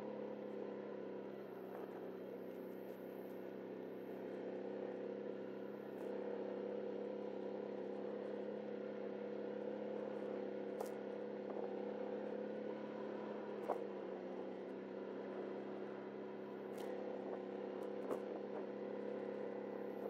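ATV engine running at a steady, even pitch with no revving, as the machine is ridden at low speed, with a few faint light knocks.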